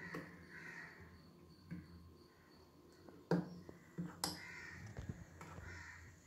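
A steel spoon stirring thick dosa batter in a bowl, knocking against the bowl in several sharp clinks, most of them in the second half. Short hoarse calls sound faintly in the background a few times.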